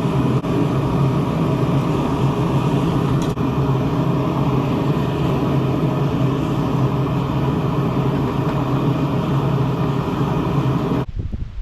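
Forge running with a steady noise and a low hum, cutting off abruptly near the end.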